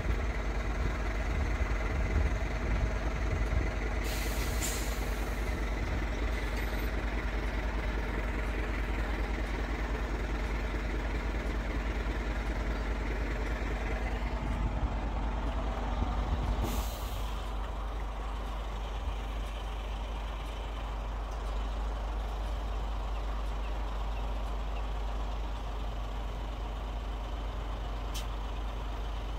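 Heavy lorry engine idling, with two short air-brake hisses. The engine note drops a little a bit over halfway through.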